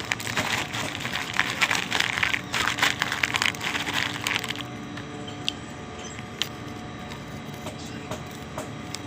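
Popcorn being chewed close to the microphone: dense crunching and crackling for about the first four and a half seconds, then only a few faint clicks over a low steady hum.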